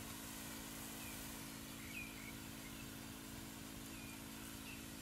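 Short bird chirps, repeated several times, over a steady hiss and a low hum.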